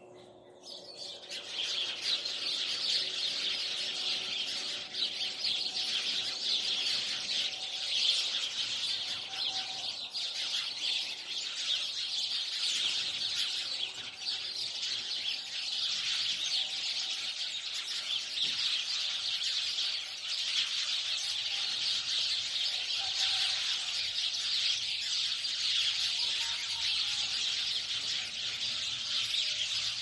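A dense chorus of many birds chirping at once in a tree, a continuous mass of high, overlapping calls that swells up about a second in and holds steady.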